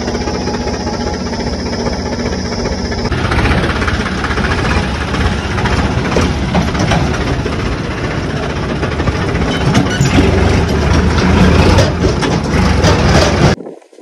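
Diesel tractor engine running as the tractor drives, heard from on board, with a steady rattle. The sound changes character about three seconds in, gets louder around ten seconds, and cuts off suddenly near the end.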